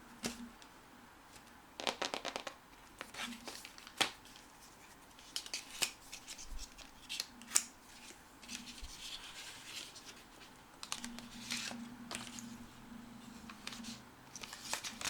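Cardboard and paper packaging of an Apple Watch box being opened by hand: irregular tearing, scraping and rustling with sharp clicks and snaps.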